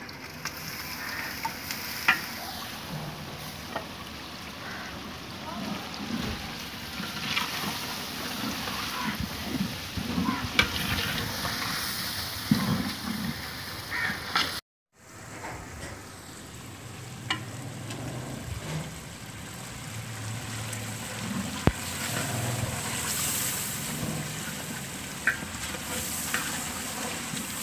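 Food frying in a cooking pot, sizzling steadily while it is stirred, with scattered clicks and scrapes of the stirring spoon against the pot. The sound breaks off briefly about halfway through.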